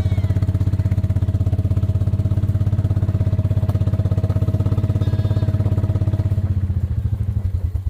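An engine idling with a steady, even pulse. About six and a half seconds in its beat slows and spreads out as it is switched off and winds down.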